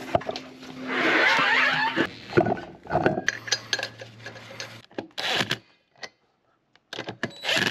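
Metal clinks and clatter of lug nuts and a wheel centre cap being handled as an aluminium wheel is fitted, with short bursts of a cordless impact wrench driving lug nuts later on.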